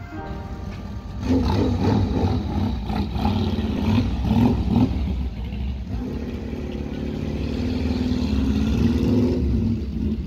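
Motorcycle engines revving unevenly for a few seconds. Then one motorcycle pulls away, its engine note climbing steadily.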